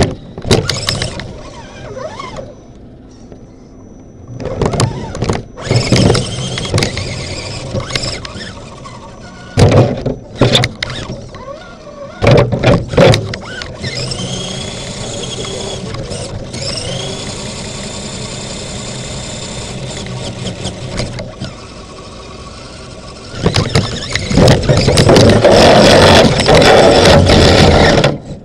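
RC crawler's electric motor and gear drive whining as it drives, heard from inside the body shell, with knocks and rattles. Twice, about halfway through, the high whine rises in pitch and then holds steady for several seconds. Near the end there is a louder, rougher stretch.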